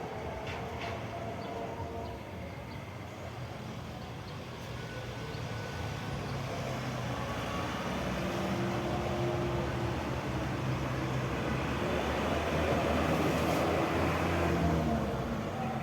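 An engine running steady, growing gradually louder and then dropping off near the end, like a motor passing close by.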